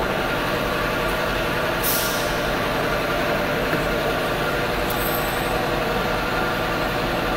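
Xinfei instant boiling-water dispenser running, a steady hissing rumble from its heater and pump, with brief sharper hisses about two and five seconds in.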